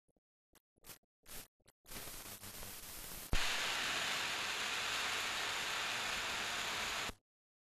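Steady hiss of steam from a steam locomotive running on a rolling test bed. It grows louder after a sharp click about three seconds in and cuts off abruptly near the end, after a few short bursts of noise at the start.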